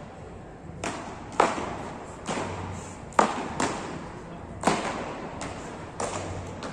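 Beach tennis paddles hitting the ball in a rally: about eight sharp pops, a half-second to a second apart, each ringing briefly in a large hall.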